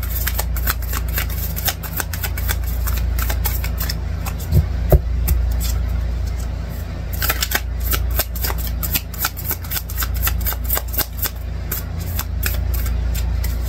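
A deck of oracle cards being shuffled by hand: quick runs of crisp card clicks in two spells, with two thumps about a third of the way in. A steady low hum lies underneath.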